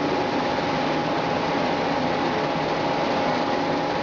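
Sand washing plant with spiral sand washers running: a steady machinery hum with a faint constant whine over an even noisy wash, unchanging throughout.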